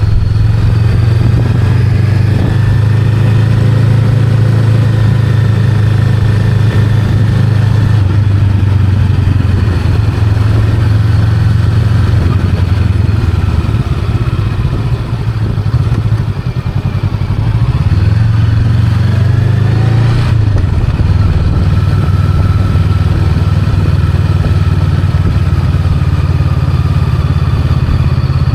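Honda Rebel 500's parallel-twin engine running as the bike rides along at a steady pitch. About halfway through it eases off and goes quieter for a couple of seconds. Then the pitch rises as it accelerates, and it settles back into a steady cruise.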